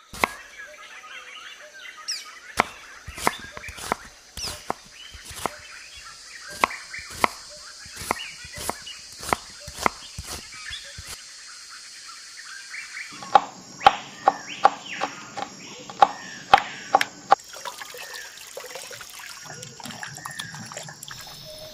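Repeated sharp knocks, roughly one a second, with a second burst of louder knocks over a low steady hum in the second half, and birds chirping in the background. Near the end, raw chicken pieces are rubbed and turned by hand in a wet steel bowl.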